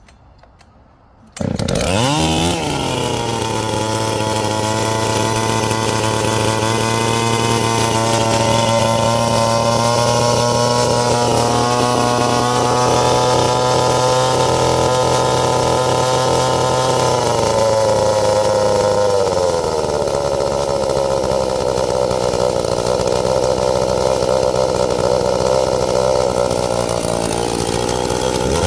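Husqvarna 266 two-stroke chainsaw with a ported intake and a modified muffler, starting on its first run after the porting. It fires about a second and a half in, rising quickly in pitch as it catches, then runs steadily at idle. About two-thirds of the way through, the engine slows and drops in pitch, then settles again.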